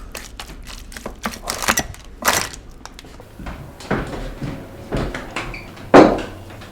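Plates, serving dishes and cutlery clattering and knocking as they are passed and set down on a dinner table: a string of separate clicks and thuds, the loudest about six seconds in.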